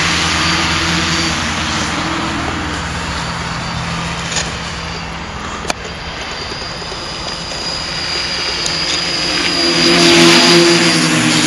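Quadcopter's motors and propellers buzzing in flight. The buzz eases off a little mid-way, then swells loudest as the craft passes close, about ten seconds in. A single sharp click comes about halfway through.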